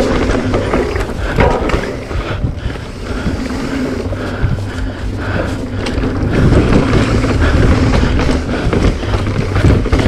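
Wind rushing over the microphone with the rumble and rattle of a 2022 Stumpjumper EVO mountain bike's tyres and chain on a rough dirt downhill trail at racing speed, steady and loud throughout.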